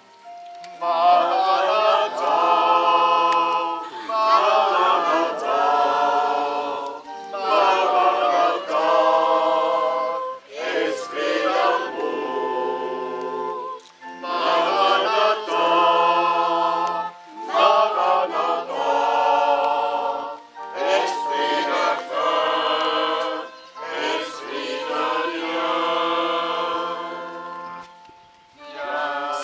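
A group of men and women singing a hymn together, in phrases of a few seconds with short pauses for breath between them.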